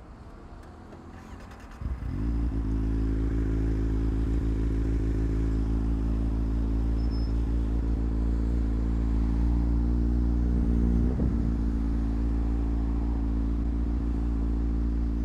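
Motorcycle engine starting up about two seconds in, then running steadily at low revs. It is started after a crash to test whether the bike can still be ridden.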